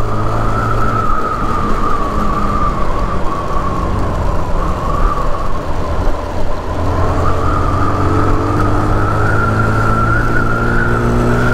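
Honda CB300R's single-cylinder engine running as the motorcycle rides along the road, under a steady high whine. The engine eases off about a second in and picks up again just past halfway.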